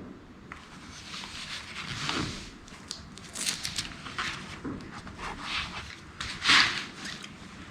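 Handling noise from a laptop being handled: a string of short, irregular rustling and scraping bursts, the loudest about six and a half seconds in.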